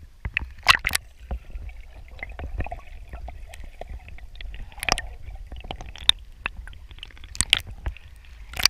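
Water sloshing and splashing against a camera held at the waterline as it dips under the surface and back up, with many sharp knocks and clicks over a steady low rumble.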